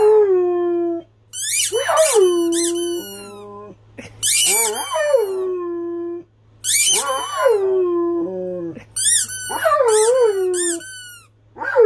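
A dog howling at a squeaky toy: about four long howls, each sliding down in pitch and settling on a steady note, set off by high, sharp squeaks of the toy.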